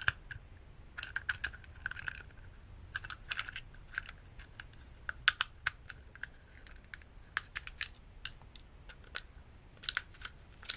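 Parts of an airsoft gas blowback pistol being handled and fitted together by hand: irregular light clicks and taps of small metal and plastic pieces.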